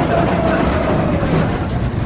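Big Thunder Mountain Railroad mine-train roller coaster running along its track: a loud, steady rush of noise with a faint whine that slowly falls in pitch.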